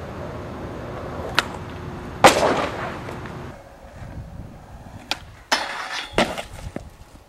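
Skateboard on pavement: wheels rolling, with a sharp click and then a loud clack about two seconds in. Near the end, several sharp board hits come as a skater rides down past a stair set and lands.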